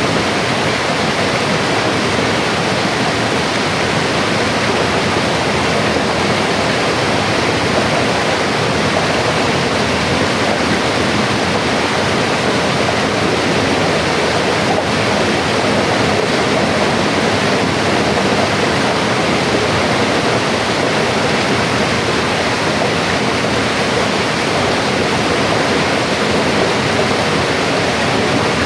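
A fast mountain river rushing, a steady dense wash of flowing water.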